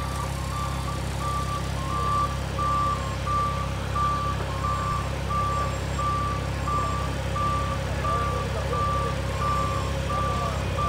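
Heavy equipment's reversing alarm beeping steadily, about three beeps every two seconds, over the low, steady running of a diesel engine.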